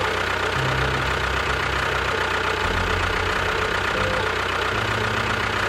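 Tractor engine idling steadily, starting and stopping abruptly, over background music.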